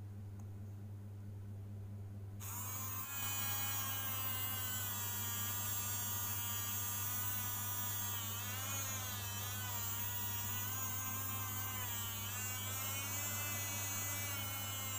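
Small salvaged DC motor running with a buzzing whine that switches on about two seconds in, its pitch wavering now and then as the load shifts, over a steady low hum.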